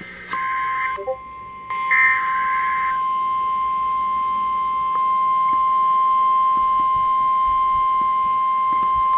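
Emergency Alert System tornado-warning alert over a weather radio. Two short screechy digital header bursts come about half a second in and again at two seconds, over a steady single-pitched warning alarm tone that starts almost at once and holds unbroken.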